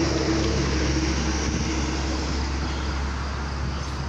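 Steady rushing noise of road traffic going by, with a faint tone that fades out in the first half second.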